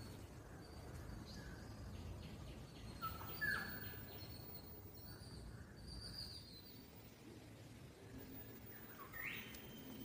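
Faint outdoor background with a few short bird chirps: a couple about three and a half seconds in, one around six seconds, and a sweeping call near the end.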